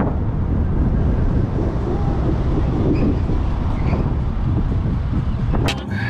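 A vehicle driving on the road: a steady, loud rumble of road noise, with a sharp click near the end.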